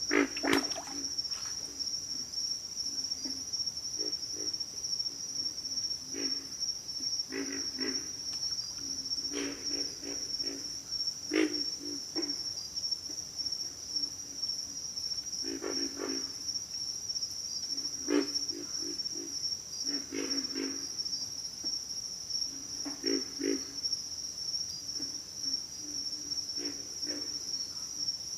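Pig frogs grunting, short runs of low, rough grunts every few seconds, over a constant high-pitched insect drone.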